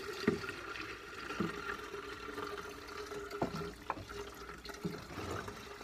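Gasoline pouring in a steady stream from a Stihl MS 390 chainsaw's tipped-up fuel tank into a glass jar as the tank is drained, with a few light knocks.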